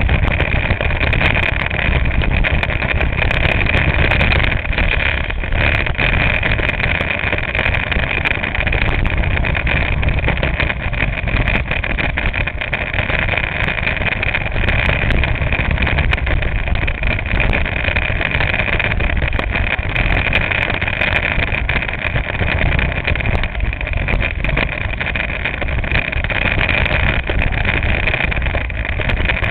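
Go-kart engine running steadily as the kart laps the track, heard from a camera mounted on the kart's nose, with heavy wind and rumble mixed in. The sound carries on without a break.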